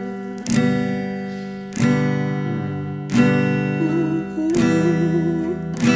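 Acoustic guitar strumming worship-song chords, one strum about every second and a half, each left to ring out. A wavering held note joins over the chords in the second half.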